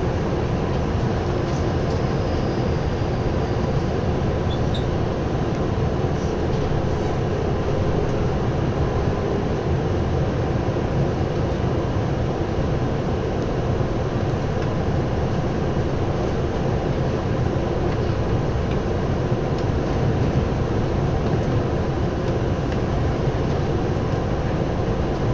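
Steady running noise of a Tokyu Oimachi Line electric commuter train, heard from inside the car as it travels at speed: a constant low rumble of the wheels on the rails, with no let-up.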